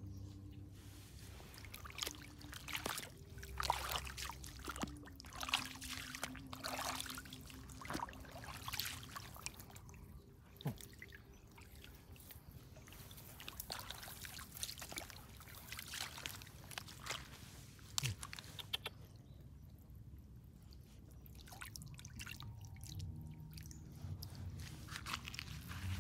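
Irregular crackles, squelches and small wet splashes of shallow muddy water and wet soil being worked through by hand, with a low steady hum underneath; it goes quieter for a few seconds about three-quarters through.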